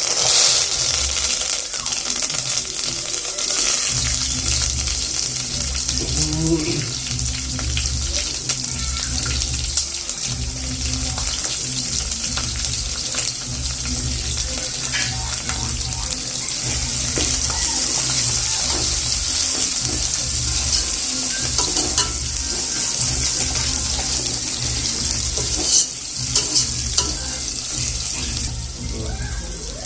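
Food frying in hot oil in a pan, a steady sizzle, with a low pulsing beat underneath.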